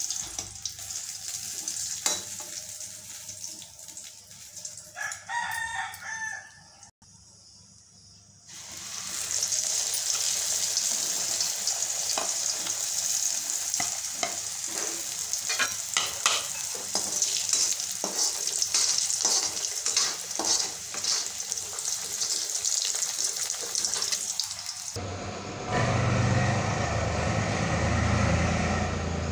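Puris deep-frying in hot oil in an iron kadhai: a steady high sizzle with crackles. A rooster crows briefly about five seconds in, and near the end the sizzle gives way to a lower rumble.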